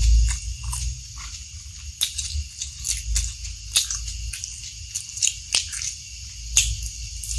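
Close-miked mouth eating sounds: wet chewing with irregular sharp, sticky clicks and smacks, one every half second to a second.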